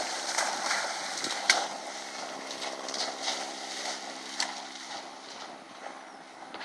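A steady low motor hum of several even tones, over a rushing noise, fading out about five and a half seconds in. There is a sharp click about one and a half seconds in.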